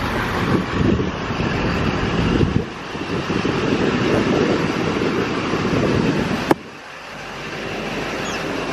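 Loud, uneven low rumble of outdoor noise on a handheld camera's microphone, with traffic in it. A sharp click comes about six and a half seconds in, after which the noise is much quieter.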